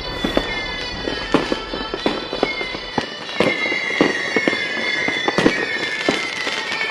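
Fireworks bursting, many sharp irregular pops and cracks, with falling whistle-like tones and music underneath.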